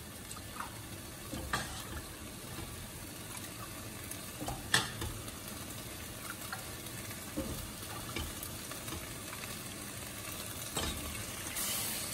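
Spiced rice frying in a steel pot on a gas burner, a steady sizzle, with several sharp clinks of a metal ladle against the saucepan and a glass cup as broth is ladled out. Near the end a cup of hot broth goes into the rice pot with a louder hiss.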